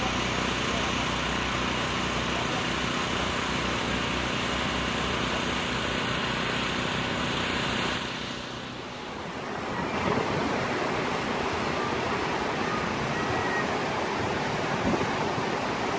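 Steady rush of falling water from Bridal Veil Falls, a tall tiered waterfall, dipping briefly about eight seconds in before carrying on.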